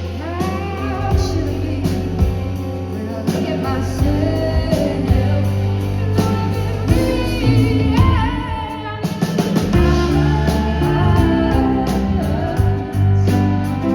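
Live pop music: a woman singing over a band, with guitar and sustained bass notes.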